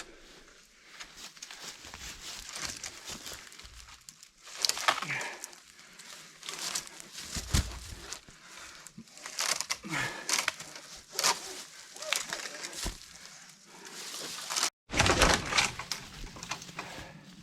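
Irregular rustling, crackling and knocking from work on a dead standing tree with ratchet straps and a splitting maul, with a few louder knocks.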